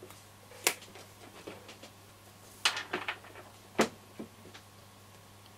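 Several short, sharp clicks and taps from small components and hand tools being handled on a workbench, the loudest near the middle and about four seconds in.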